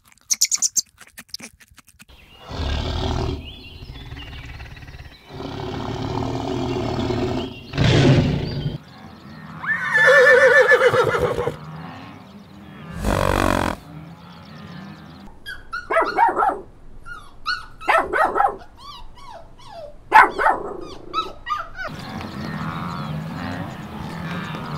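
A rabbit's few crunching bites of a carrot at first, then a string of separate loud animal calls, each a second or two long, one of them a clear pitched call about ten seconds in. A steadier low sound follows near the end.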